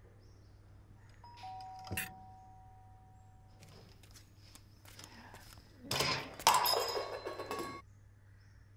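Two-note doorbell chime, a higher note then a lower one, each ringing on for about two and a half seconds. A sharp knock sounds about two seconds in, and a louder burst of clattering comes near the end.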